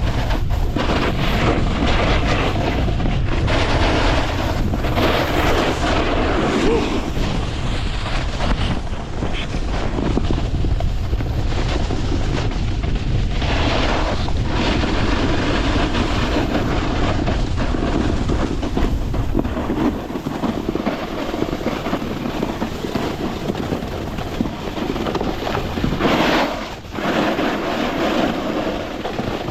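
Wind rushing over the camera microphone during a snowboard descent, with the hiss and scrape of the board's edges across the snow swelling on the turns.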